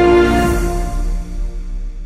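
Background music: sustained chords fading away.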